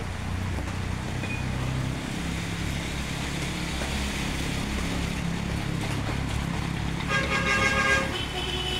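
Motor traffic running on a wet street, with a motor scooter's engine passing close. Near the end a vehicle horn sounds once for about a second.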